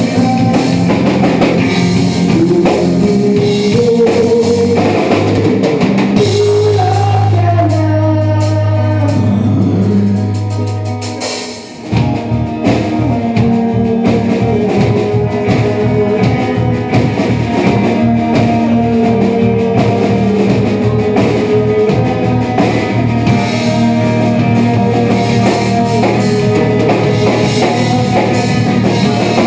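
Live rock band playing: acoustic guitar, electric bass, drum kit and electric guitar. About a third of the way in, the band drops to a held low chord that fades briefly, then the drums kick back in and the full band resumes.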